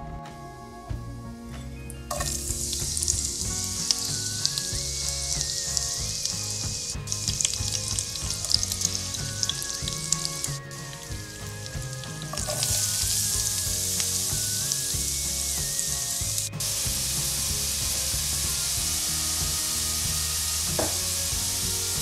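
Hot oil sizzling steadily in a pan with mustard seeds, cumin, green chilies and curry leaves frying. It grows louder about halfway through, when chopped onions are tipped into the oil.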